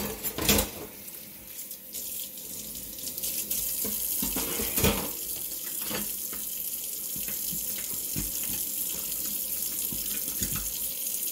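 Kitchen faucet running into the sink while a knife is rinsed, with a couple of sharp knocks about half a second and five seconds in; after that the water runs steadily.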